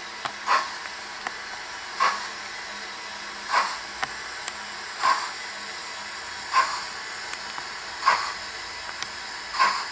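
Simulated steam-engine chuffs from the sound system of a Dapol model of the 0-4-0 saddle tank locomotive Invincible, running slowly: an even beat of about one chuff every second and a half over a steady hiss, with faint clicks between the chuffs.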